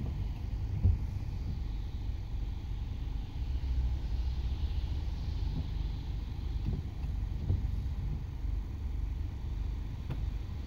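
Low, steady rumble of a 1996 Acura Integra GSR's 1.8-litre DOHC VTEC four-cylinder idling, heard from inside the cabin. A faint hiss swells and fades about halfway through.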